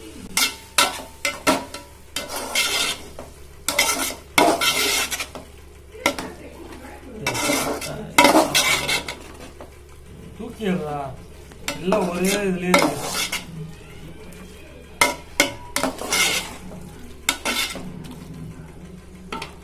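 Slotted spatula stirring and scraping chicken pieces in thick masala against the side of a metal pot, in irregular strokes, over a light sizzle of the masala frying in oil.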